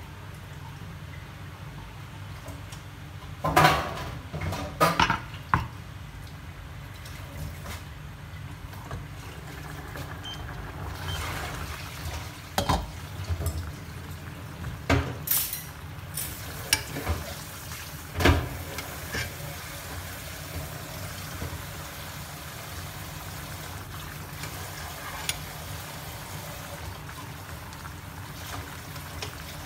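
Pot of shrimp and vegetable soup bubbling at a boil, with several sharp clinks and knocks of the pot and its lid: a cluster about four seconds in, and more between about twelve and nineteen seconds in.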